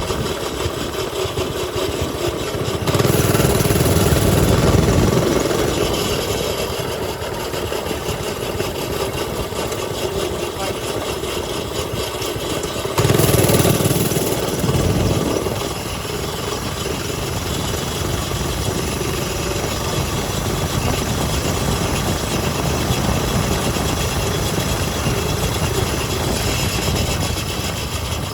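Mini bike engines running, with two louder stretches of about two seconds each, coming on suddenly about three and thirteen seconds in.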